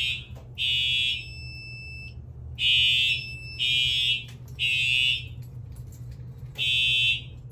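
Fire alarm horns sounding the temporal-three evacuation pattern: three short electronic horn blasts, a pause of about a second and a half, three more, a pause, then the next group starting near the end. A steady low hum runs underneath.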